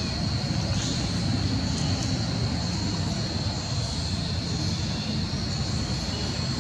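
Steady low rumble with a continuous high-pitched insect drone above it.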